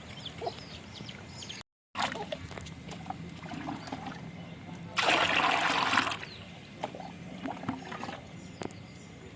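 Water splashing as it is poured, loudest for about a second midway through, with light trickling and scattered small knocks around it.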